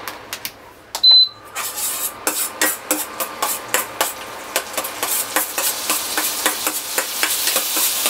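Steel spatula scraping and clinking against a stainless steel kadai as chopped green chillies are stirred in melted butter, with one loud ringing clink about a second in. A sizzle from the chillies frying in the butter builds toward the end.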